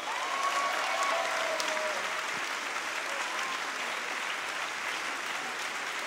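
Audience applauding steadily, a dense clapping that runs on without a break.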